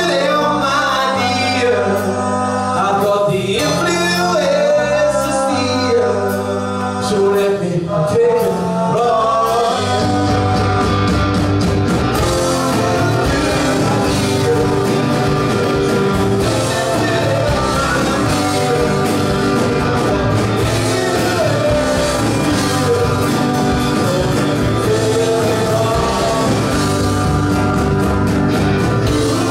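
Live rock band playing with a male lead vocal. For about the first ten seconds the singing is over sustained guitar and bass notes, then the full band with drums and cymbals comes in and plays on steadily.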